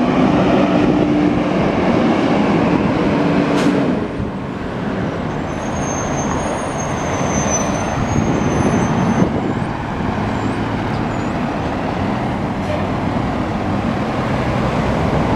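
City street traffic, with a 2012 KME pumper fire engine driving past without its siren among the passing cars. Its diesel engine runs under the steady road noise.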